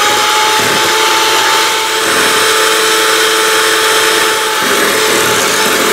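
Breville 320-watt electric hand mixer running at a steady speed with a steady motor whine, its beaters whipping thickened cream toward soft peaks.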